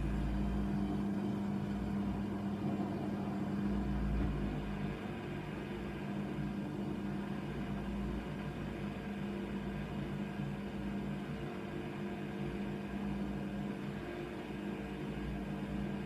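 Hoover Nextra HNWL 7146 front-loading washing machine tumbling a wet duvet during its wash: the drum motor hums steadily, with a low rumble swelling every few seconds in the first half.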